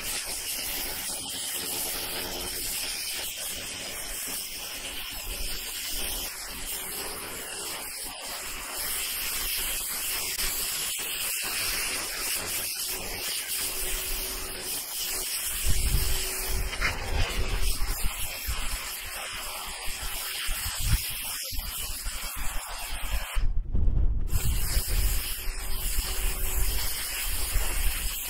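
Ryobi 1600 psi electric pressure washer's turbo nozzle blasting water onto asphalt roof shingles, a steady hissing spray that strips off moss. The spray stops for under a second about three-quarters of the way through, and low rumbles come in over the second half.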